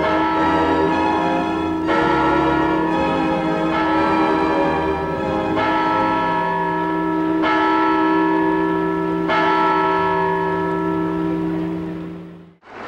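Large clock-tower bell striking midnight, one deep stroke about every two seconds, each ringing on into the next. The ringing fades out near the end.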